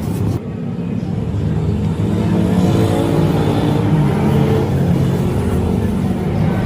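An engine running steadily, its pitch shifting up and down a little.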